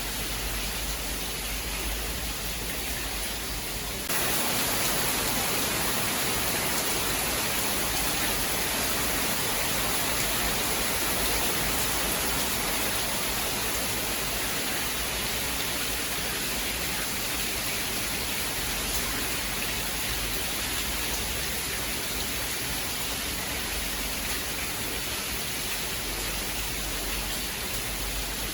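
Steady heavy rain with an even hiss and no thunder. About four seconds in it turns louder and brighter, with less low rumble.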